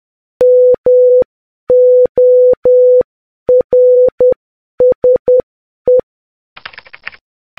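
Morse code beeps on one steady mid-pitched tone, keyed in long and short beeps that spell out "MORSE" (-- --- .-. ... .). A short, soft burst of hiss follows near the end.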